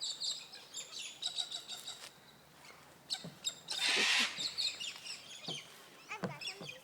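Cockatoos calling: many short high chirps, with one loud, harsh screech lasting about half a second about four seconds in.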